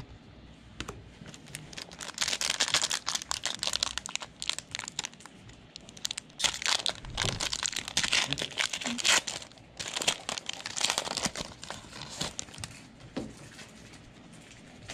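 A basketball trading-card pack's wrapper being torn open and crinkled in the hands, in three stretches of rustling crinkles with short pauses between.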